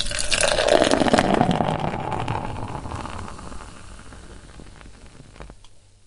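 Beer poured in a stream into a glass, splashing and foaming. It is loudest in the first couple of seconds, then tapers off and stops about five and a half seconds in, leaving the faint fizz of the foam head.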